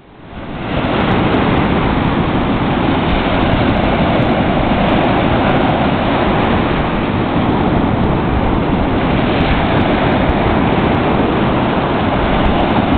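Ocean surf breaking and washing up the beach, a steady loud rush, mixed with wind buffeting the microphone.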